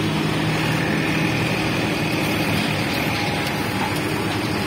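Heavy diesel engines of a JCB backhoe loader and a tractor running steadily under load: the loader is pushing a tractor hauling two sugarcane-laden trailers.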